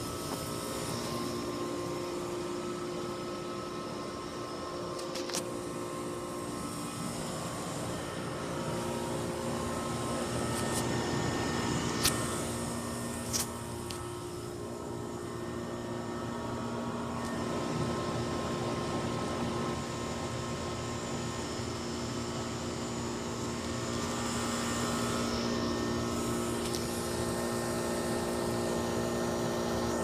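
Goodman heat pump outdoor unit running: a steady hum from its compressor and condenser fan, with a few short clicks near the middle.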